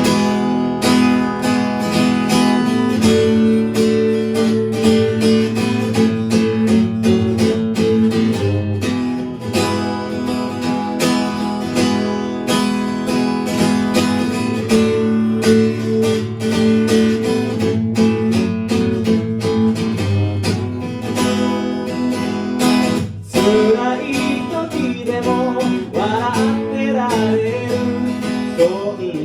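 Acoustic guitar playing strummed chords in a steady rhythm, with a brief break about two-thirds of the way through before it carries on.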